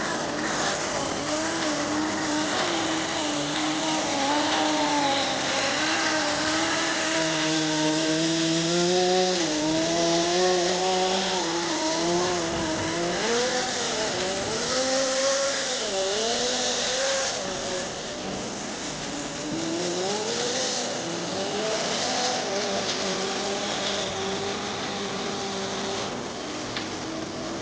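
Kyosho GX-15 two-stroke nitro engine of an RC Nitro Blizzard snow groomer running, its pitch rising and falling again and again as the throttle is worked, over a steady hiss.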